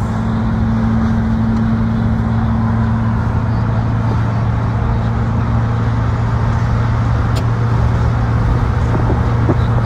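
Car driving: a steady drone of road and engine noise.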